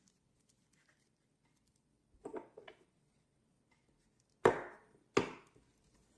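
Small lighter parts and tools being handled on a work surface: a few light knocks about two seconds in, then two sharp knocks less than a second apart.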